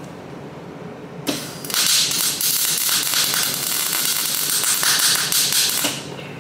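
Electric welding arc crackling as a weld is run on the buggy's steel frame at the rear shock mount. A brief strike comes about a second in, then a steady crackle of about four seconds that stops abruptly near the end.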